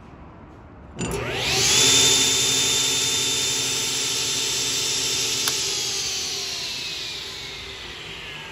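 Yamada Seiki DS-12 tilting table saw switched on about a second in, its motor and blade spinning up with a rising whine and then running steadily. A click about halfway through, after which the whine falls slowly in pitch as the saw coasts down after being switched off.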